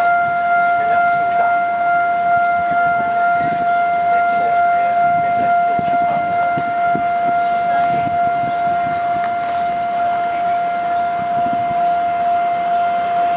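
Railway level-crossing warning alarm sounding one steady, unbroken tone: the signal that a train is approaching and the barriers are down.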